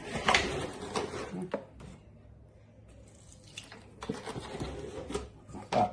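Spoon stirring a wet paste in a mixing bowl: scraping, squelching and clinks against the bowl, in two bouts with a quieter pause between.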